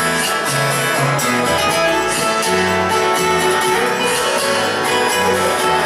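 A live pop-rock band plays an instrumental passage, guitar-led, with a moving bass line and a steady beat on drums and cymbals.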